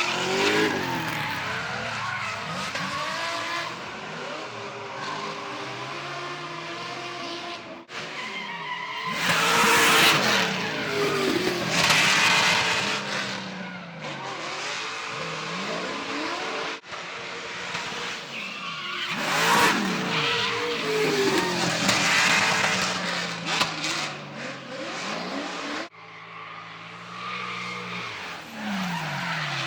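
Drift cars' engines revving up and down hard, with tyre screech during the slides, loudest in two long stretches. The sound breaks off abruptly three times and picks up again.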